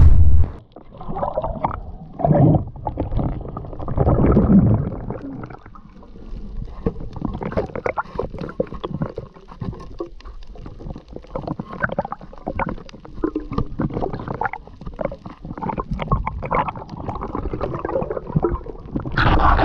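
Muffled underwater sound of a spearfisher swimming over a reef: water gurgling and rushing, with louder swells in the first few seconds and many small clicks and knocks after that.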